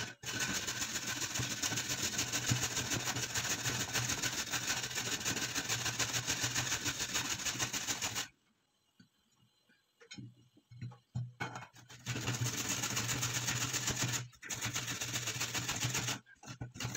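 Carrot being grated on a metal box grater: a fast, continuous rasping that stops about eight seconds in and starts again about four seconds later.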